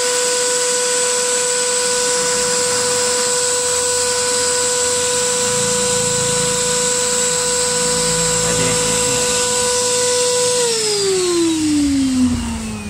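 Handheld electric air blower running with a steady whine and rush of air, blowing toner off a photocopier drum cleaning blade. About ten and a half seconds in it is switched off and the whine falls in pitch as the motor winds down.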